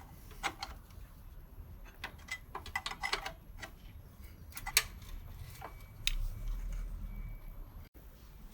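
Irregular light metallic clicks and taps of hand tools on moped parts, some ringing briefly, as the last remaining fastener is worked loose. A low rumble comes in about six seconds in and lasts a couple of seconds.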